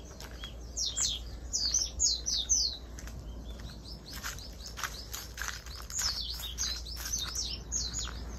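A small bird singing: two runs of quick, high chirps, each note falling in pitch, with light scattered clicks and a low steady hum underneath.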